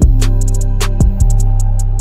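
Background music with a beat: a heavy bass line comes in sharply at the start, over fast hi-hat ticks, with a low bass note sliding down about a second in.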